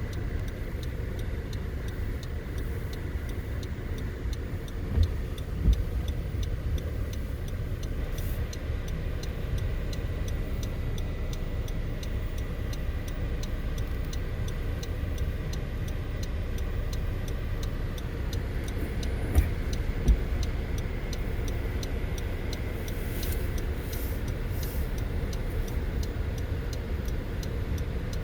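A car driving, with a steady low road rumble and a fast, even ticking. Two pairs of sharp thumps, each pair less than a second apart, come about 5 seconds in and again about 19 seconds in.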